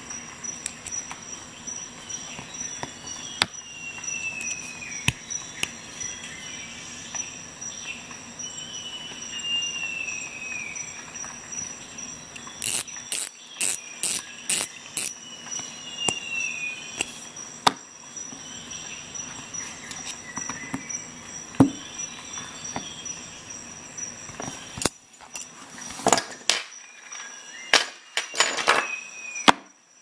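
Small metal tool parts, a hex bit and socket adapter, clicking sharply as they are handled and fitted together, with a quick run of about six clicks near the middle and more clicks near the end. A steady high-pitched whine runs underneath, with a few short falling squeaks in the first half.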